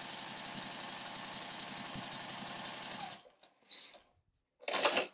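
Domestic sewing machine with a walking foot stitching steadily at a fast even rhythm, stopping abruptly about three seconds in. A short loud rustle follows near the end.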